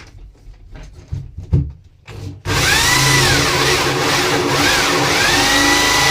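A few handling knocks, then about two and a half seconds in a power drill starts and runs steadily, boring into a hollow-core door, its motor whine dipping and recovering in pitch as the bit takes load.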